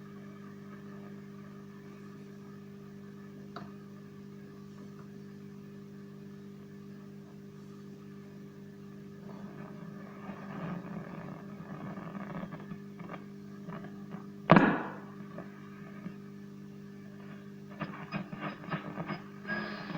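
1936 Zenith 5S-29 tube radio's speaker giving a steady hum and hiss while tuned between stations, with static crackling up in the middle. There is one sharp loud crack about two-thirds of the way in and scattered crackles near the end.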